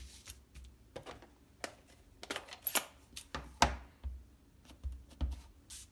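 A clear acrylic stamp block tapping on an ink pad, with the plastic ink-pad case being handled: a string of irregular light clicks and taps, the sharpest a little under three seconds in.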